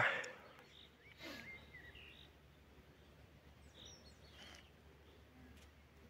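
Quiet spring-evening countryside ambience with faint, scattered songbird chirps and short calls. A brief louder noise comes right at the start.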